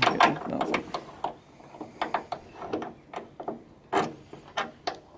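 Irregular clicks and knocks of metal and plastic parts handled while a bonnet gas strut and its bracket are fitted under a car's bonnet, with some rubbing between them.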